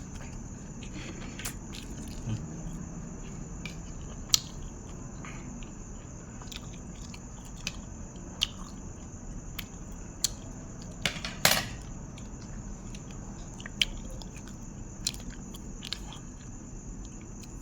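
A person chewing and biting food, nam tok moo grilled-pork salad, close to the microphone, with scattered sharp crunches and clicks. The loudest come in a cluster about eleven seconds in.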